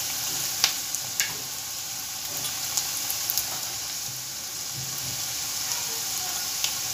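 Chopped onion and garlic sizzling steadily in hot oil in a steel kadhai as the spice tempering fries. A metal slotted spoon clicks against the pan a couple of times near the start.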